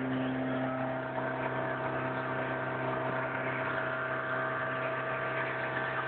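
Motorboat engine running at a steady speed while under way: a constant, even hum with a hiss of water and wind over it.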